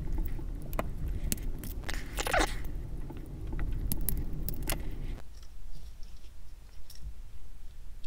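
Sharp small clicks and scrapes of a Victorinox Swiss Army knife being handled and taken apart, its metal tools and liners knocking together, with a low rubbing noise for the first five seconds that then stops.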